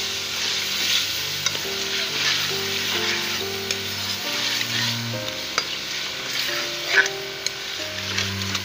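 Raw chicken pieces sizzling as they fry in hot oil and masala in a metal pot, while a metal spoon stirs and scrapes them round. The spoon knocks and clinks on the pot now and then, sharpest near the end. This is the bhunai stage of browning meat in the spice base. Soft background music plays underneath.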